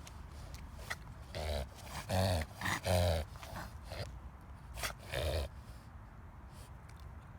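A dog reverse sneezing: a string of short, forceful noisy inhalations in quick succession, loudest about two to three seconds in and dying away after about five and a half seconds.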